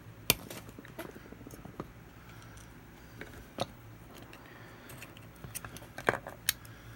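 Scattered sharp clicks and taps of small hand tools working at the E-clip on a pop rivet gun's head assembly. The sharpest click comes a fraction of a second in, with a quick run of clicks near the end.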